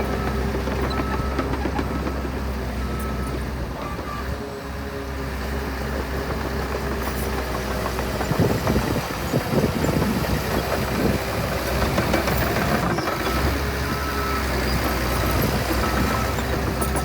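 Heavy diesel earthmoving machine running under load, with a reversing alarm beeping about once a second at the start and again near the end. A louder, rougher clattering stretch comes in the middle.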